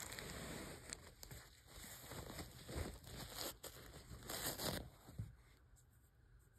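Paper towel rustling and crinkling in the hand as a wrapped specimen is unwrapped, a run of short irregular scrapes that dies away about five seconds in.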